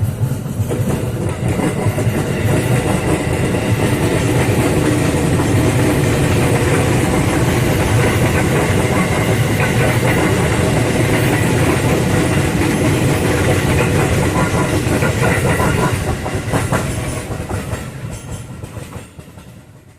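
An electric commuter train (KRL Commuter Line multiple unit) running past at close range, its wheels clattering over the rail joints. It fades away over the last few seconds as it moves off.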